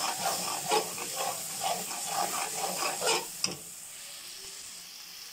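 Slotted metal spoon stirring and scraping a thick tori (ridge gourd) curry in a frying pan, while the curry sizzles in the ghee that has separated out, a sign that it is done. The stirring stops with a click about three and a half seconds in, leaving a steady sizzle.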